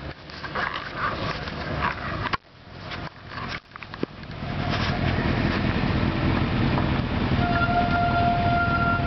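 Suzuki Gladius 400 motorcycle's V-twin engine idling steadily, becoming the main sound about halfway in after a few seconds of uneven, broken noise. A steady high tone joins near the end and breaks off briefly.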